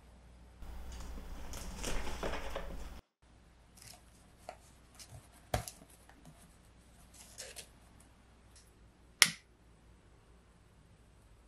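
Rustling handling noise for a couple of seconds that cuts off, then scattered light clicks and taps, and one sharp click about nine seconds in from a hand lighter struck to light a candle.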